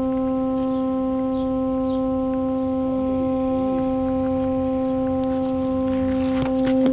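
A loud, steady horn-like drone holding one pitch with several overtones, unchanged throughout, with a few light clicks near the end.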